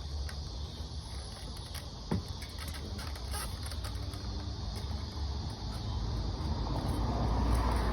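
Outdoor background: a steady low rumble under a faint high hiss of insects, with a single light knock about two seconds in.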